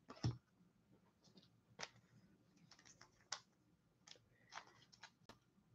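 Near silence with a few faint, scattered clicks and ticks from trading cards being handled.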